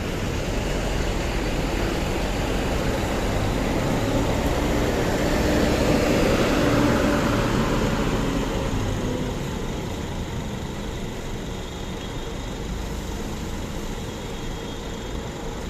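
A big bus engine running as the bus passes close by. It grows louder to a peak about six to seven seconds in, then fades gradually.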